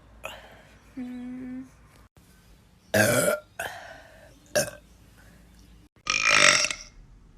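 A run of separate burps from girls, one after another: a loud one about three seconds in and another near the end, with shorter burps between them.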